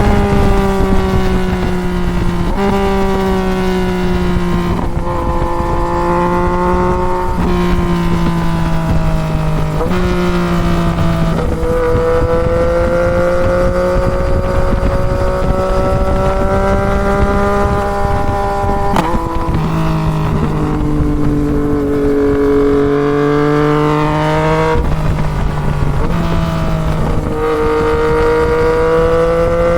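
Yamaha MT-09 inline-three engine with a full Toce exhaust, pulling hard through the gears. Its pitch climbs and drops at each upshift, quickly several times over the first twelve seconds, then holds a long steady climb before more shifts later on.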